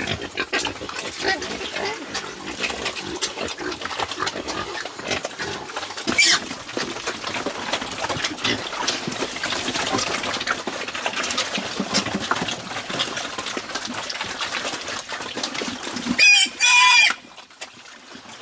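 A group of pigs eating wet mash at a trough, with a continuous mix of slurping, chomping and grunting. There is a short squeal about six seconds in and a loud high-pitched squeal near the end, after which the feeding noise drops away.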